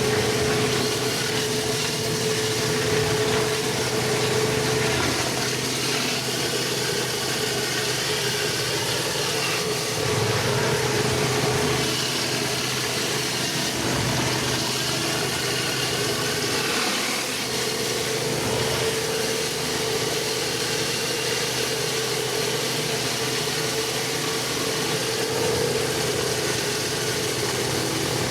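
Pressure washer's engine and pump running steadily, with a constant hiss of spraying water.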